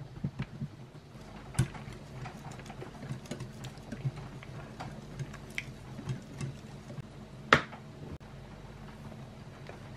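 Wire whisk beating a thick wet mixture in a glass bowl: irregular clicks of the wires against the glass with soft wet squelching, over a steady low hum. One louder sharp knock comes near the end.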